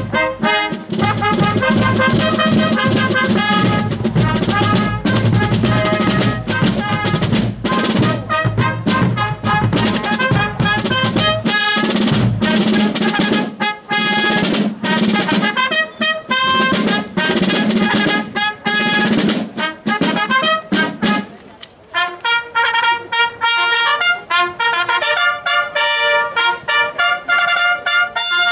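Military fife and drum corps playing a march, bugles carrying the tune over rope-tension snare drums and a bass drum. About 21 seconds in the drums drop out and the bugles play on alone.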